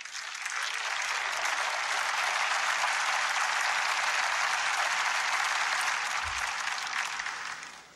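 Congregation applauding, rising quickly at the start, holding steady, then dying away near the end.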